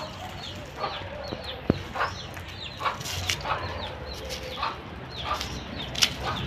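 Chickens clucking and calling repeatedly in short calls, some falling in pitch, with a single sharp tick a little under two seconds in.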